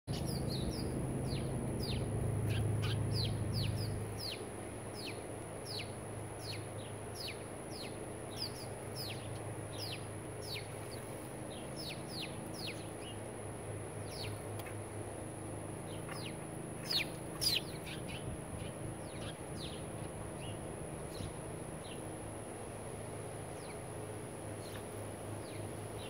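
House sparrows chirping: a fast run of short, falling chirps, two or three a second, with two louder ones about seventeen seconds in, thinning out near the end. A low hum sits under them during the first four seconds.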